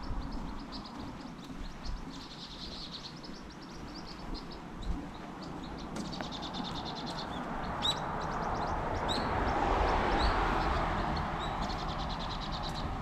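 Small birds chirping in quick, high trills on and off. A car passes on the road, its tyre and engine noise swelling to the loudest point about ten seconds in and then fading.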